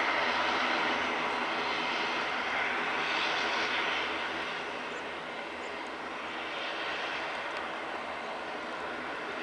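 Boeing 787-8 airliner's jet engines running at low power as it rolls slowly along the runway. A steady jet roar with a faint whine, easing a little midway and building again near the end.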